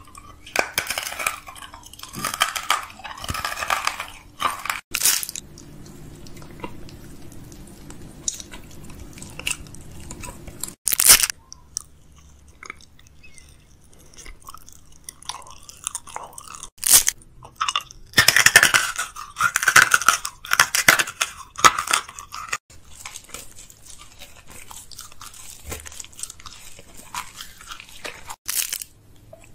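Close-miked chewing and crunching of candy in a person's mouth, ASMR-style, with a few sharp, loud crunches.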